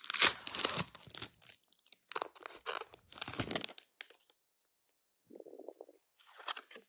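Foil wrapper of a Pokémon trading-card booster pack being torn open and crinkled, a dense crackle at first, then a few shorter crinkling bursts. It goes quiet for about a second, then there is a softer rustle near the end.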